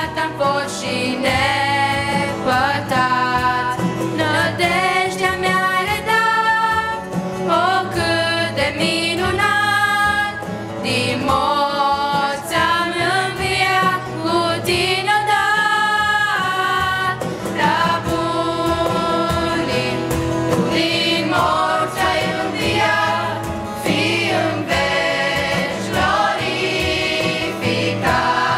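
Youth choir, led by girls' voices on microphones, singing a Christian hymn in Romanian.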